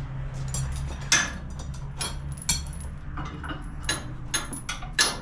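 A string of irregular sharp clicks and knocks, about a dozen, the loudest about a second in and near the end, over a low steady hum that fades out about halfway through.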